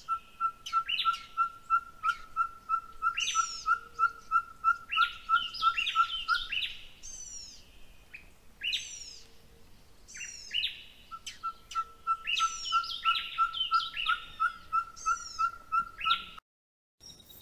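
Several wild birds calling. One repeats a short, clear note at a single pitch about four times a second in two long runs, while others give quick, higher falling chirps over it. The sound cuts out briefly near the end.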